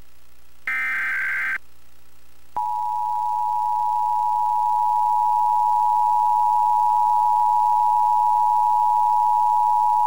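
Emergency Alert System broadcast tones for a required monthly test. First a buzzy burst of SAME digital header data lasting about a second, then about a second of quiet. Then, about two and a half seconds in, the EAS two-tone attention signal starts and holds steady, growing slightly louder.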